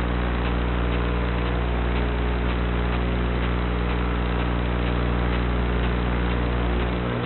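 A steady buzzing hum over a hiss, its pitch unchanging throughout.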